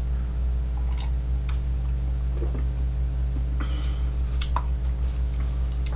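Steady low electrical hum, with a few faint clicks as a ceramic mug is set down on a wooden table.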